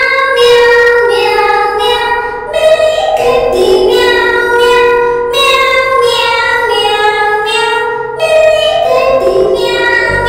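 Children's song music: a high, child-like voice sings a melody in long held notes, changing pitch every second or so, some notes wavering.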